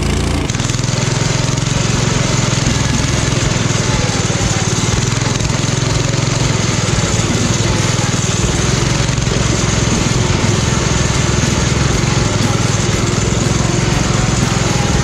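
Modified riding lawn mower engine running steadily while the mower drives along a trail, with a rushing noise over it. The sound shifts once about half a second in.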